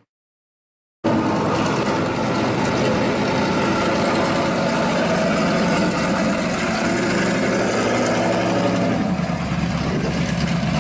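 After about a second of silence, a 1969 Camaro Z28 pro street car's V8 engine starts sounding, running steadily at low speed as the car pulls out and drives slowly off. The low rumble grows stronger near the end.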